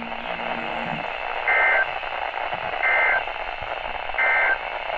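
Three short bursts of NOAA Weather Radio SAME data tones, a warbling two-tone digital squawk about a third of a second each, roughly a second and a half apart, over steady radio hiss. Bursts this short are the end-of-message code that closes a broadcast alert.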